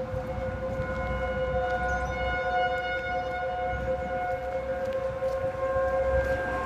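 Several outdoor tornado warning sirens being tested at once, each holding a steady tone at its own pitch. The tones overlap, and some swell and fade while the strongest stays constant.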